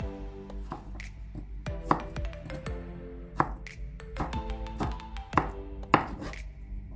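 Background music, with a chef's knife slicing down through raw potato and knocking on a plastic cutting board: several sharp knocks about a second apart.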